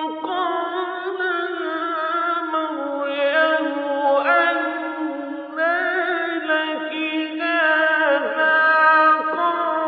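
A man reciting the Quran in the melodic mujawwad style. A single voice holds long drawn-out notes that waver and turn in pitch. It is an old 1966 recording with the top end cut off.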